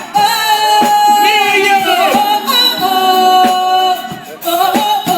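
A singer over backing music, holding long, slightly wavering notes.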